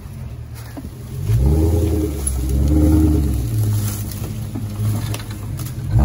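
Off-road vehicle engine revving hard under load about a second in, its pitch rising and then falling, before settling back to steadier running.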